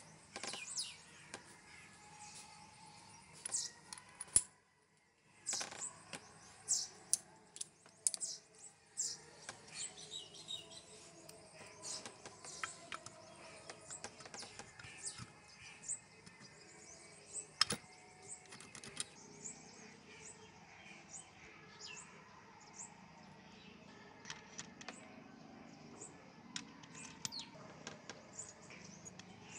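Steel gearbox shafts, gears and washers clinking and clicking against each other and the aluminium crankcase half as they are handled and fitted into a small motorcycle engine's gearbox: a long run of light, irregular metallic clicks, broken by a short silent gap about four and a half seconds in.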